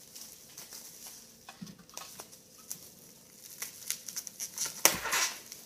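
Packaging and supplies being handled: scattered light clicks and rustling, with a louder rustle about five seconds in.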